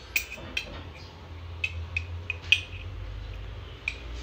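A metal spoon clinking against a glass spice jar while ground spice is scooped out: about half a dozen light, sharp clinks at uneven intervals. A low steady hum runs underneath.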